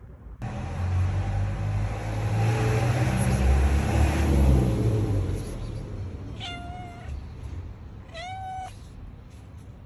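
A loud low rumble swells and fades over the first five seconds. Then a long-haired tabby cat meows twice, short meows under two seconds apart, the second rising at its start, while looking up at the person as though asking for food or to be let in.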